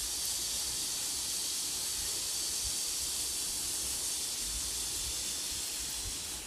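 Steady, even hiss, strongest in the high range, with no distinct strokes or knocks; it eases slightly near the end.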